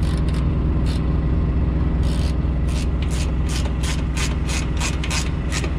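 Hand ratchet wrench clicking as it tightens the bolts on a semi truck's air-filter canister clamp. There are a few scattered clicks, then a steady run of about four clicks a second, over a steady low rumble.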